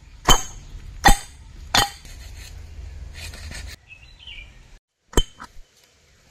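Raw chicken being pounded in a metal pot: three sharp knocks with a metallic clink, about three-quarters of a second apart. After a sudden drop in sound, one more knock.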